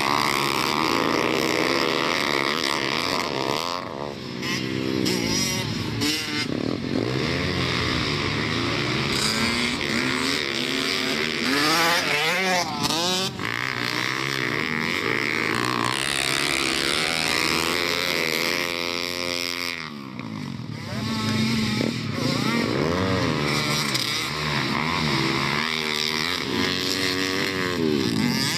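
Pit bikes racing on a dirt track, their small single-cylinder engines revving up and falling off again and again through gear changes and corners as they pass. The sound dips briefly about four seconds in and again near twenty seconds.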